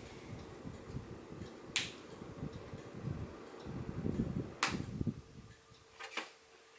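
Vornado VH2 fan heater running on its low setting, with a low fluttering rumble of moving air and a steady hum. Sharp clicks come about two seconds in and again about four and a half seconds in, and a couple more near the end as the rumble falls away.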